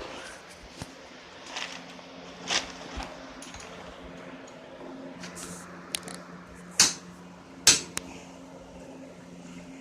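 Scattered clicks and knocks of small parts and tools being handled during motor disassembly, with two sharper knocks about seven seconds in, over a faint steady hum.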